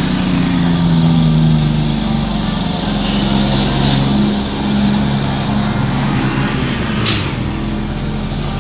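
Diesel engine of an International tractor-trailer hauling a shipping container, running loud as it passes close by, its pitch dropping a little over the first two seconds and then holding steady. A short sharp click sounds about seven seconds in.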